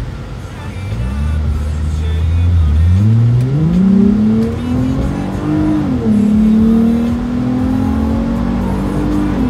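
2012 Lexus IS250 F Sport's 2.5-litre V6 with the muffler deleted, heard from inside the cabin while accelerating. The exhaust note climbs steadily in pitch from about three seconds in, drops at an upshift around six seconds in, then holds steady.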